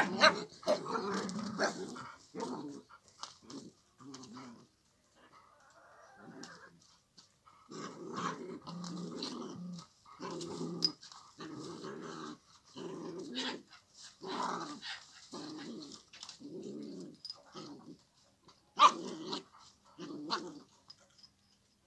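Dogs growling in rough play: a series of short growls, roughly one a second, with a louder, sharper dog sound about nineteen seconds in.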